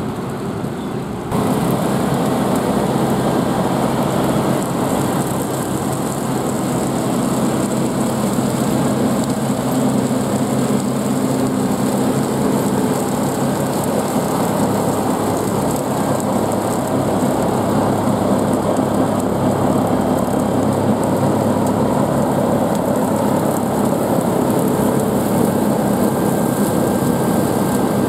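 Kubota farm tractor's diesel engine running steadily as it pulls a rotary mower past at close range, growing suddenly louder about a second in.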